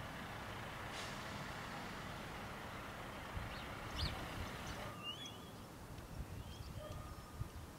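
Faint outdoor ambience: a steady background hiss with a few short bird chirps about three and a half to five seconds in. The hiss thins slightly about five seconds in.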